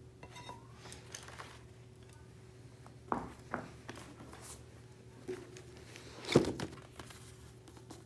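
Books and paper handled on a jute rug: soft paper rustling and sliding, a couple of light knocks about three seconds in, and a louder thud a little past six seconds as a book is set down.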